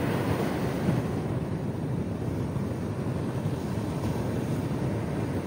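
Steady low rushing noise of surf and wind buffeting the phone's microphone.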